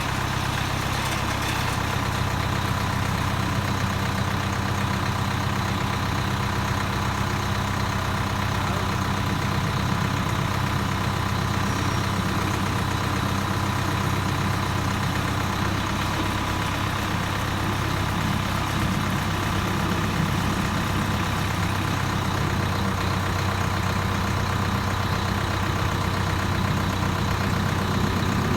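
Tractor engine running steadily while it drives a three-row corn harvester: a constant low drone with machinery noise over it, and no change in pace.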